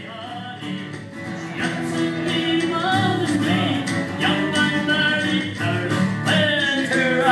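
Live Celtic folk music: acoustic guitar strummed under a wavering melody line. It fades in over the first two seconds and then plays steadily.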